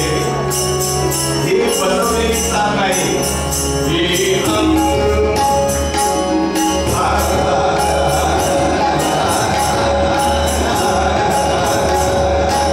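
Live Marathi devotional bhajan: a male voice singing over tabla, with metal jingles keeping a steady beat. The sung line glides in pitch in the first few seconds, then settles into long held notes from about halfway.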